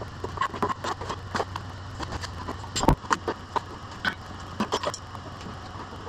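Scattered metal clanks and clicks of tools and parts being handled, with one heavier knock about halfway through, over a low steady hum.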